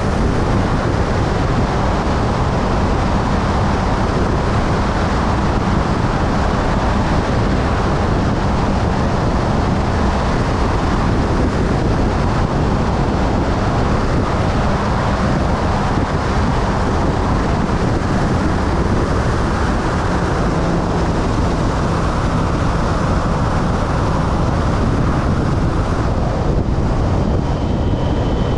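Motorcycle cruising at a steady highway speed: a constant rush of wind on the microphone over a low, even engine hum.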